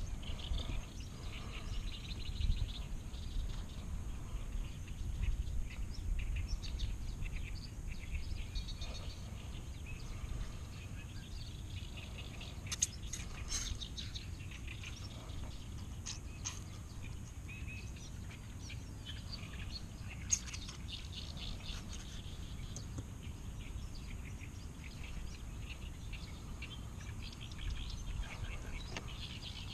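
Birds chirping and calling on and off over a steady low rumble, with a few sharp clicks about a third and two thirds of the way through.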